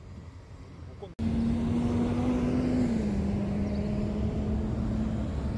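Road traffic: a quieter street hum, then after a sudden cut about a second in, a louder steady vehicle engine hum with one held tone that dips slightly in pitch partway through.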